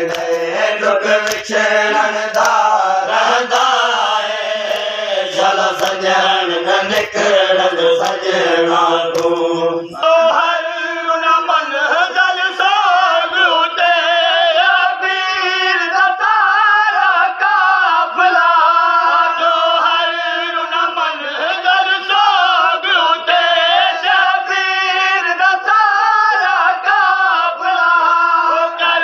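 A group of men chanting a noha, a Shia lament, together in a steady sung chant. Through the first ten seconds or so, sharp slaps sound about once a second, then stop while the chanting goes on.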